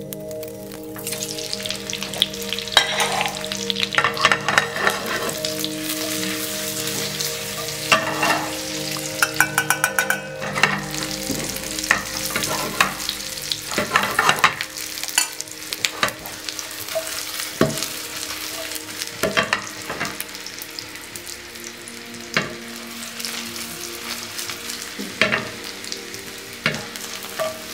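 Confit potatoes sizzling as they sauté in a very hot frying pan to brown, with frequent sharp knocks and scrapes as they are stirred.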